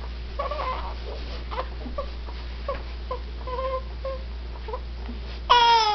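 A voice making funny noises: a string of short, squeaky chirps, then a loud call that falls in pitch near the end.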